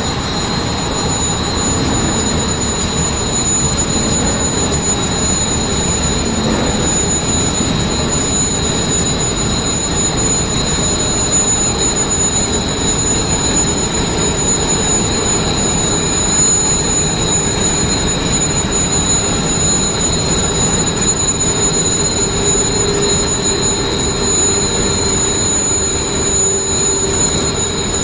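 Straight-line wire drawing machine running and drawing high-carbon steel wire at about 12 m/s. It makes a loud, steady mechanical noise with a high, steady whine over it.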